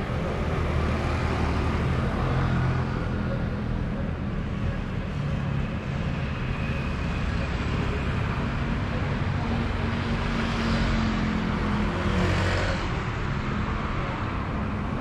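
Light street traffic on a wide avenue: a steady low rumble of road noise with cars and motorbikes passing, one swelling louder about ten to thirteen seconds in.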